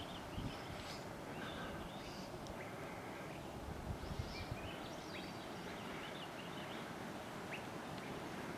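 Wild birds chirping and singing, short calls scattered throughout, over a steady low outdoor background noise. A few soft low bumps stand out, one near the start and a small cluster about four seconds in.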